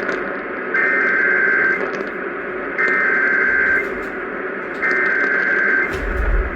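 Three data bursts of an Emergency Alert System SAME header from a weather radio, about a second each and a second apart, over radio hiss, marking the start of a new alert. A low thump comes near the end.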